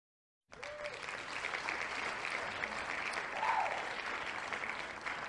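Applause sound effect played by an online spinning-wheel picker to announce a winner: dense clapping that starts abruptly about half a second in, with a brief whoop about three and a half seconds in.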